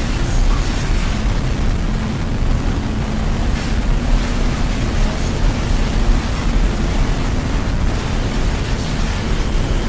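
Loud, steady wash of rumbling noise, heaviest in the bass, with a faint low hum held through it: a noise or drone passage of an experimental track.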